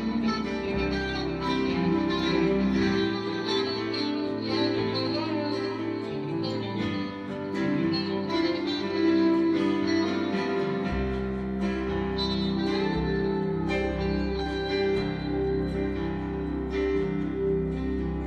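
Live instrumental music led by a Stratocaster-style electric guitar playing picked notes over a band backing. The low bass notes drop out for a stretch in the middle and come back.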